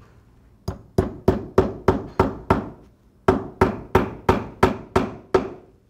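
A claw hammer tapping nails through a steel belt-splicing template into a wood plank: two runs of about seven quick strikes, roughly three a second, with a short pause between them. The nails are set only part-way, to hold the template in place.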